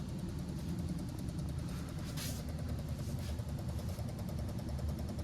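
Trane split-system air conditioner's outdoor condensing unit running, a steady low hum of compressor and fan, with a brief hiss about two seconds in.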